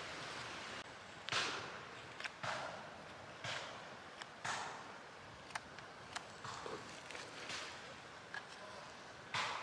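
Mora 510 carbon-steel knife shaving a green sycamore spoon blank: short scraping cuts, about one a second, with a few sharp clicks between them.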